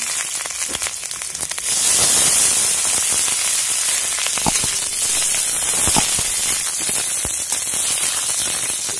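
Whole green chilies and garlic cloves frying in hot oil in a kadai, a dense sizzle full of crackling with a few sharper pops, growing louder about two seconds in.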